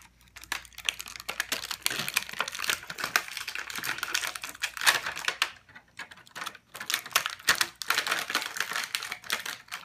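Clear plastic toy packaging crackling and clicking in quick, irregular runs as it is handled to free a figure from its twist tie, with a short lull about midway.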